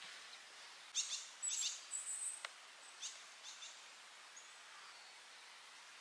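Wild bird calls: a quick run of short, high chirps about a second in, a held high note and a few more sharp chirps up to about three and a half seconds in, over a faint steady background hiss.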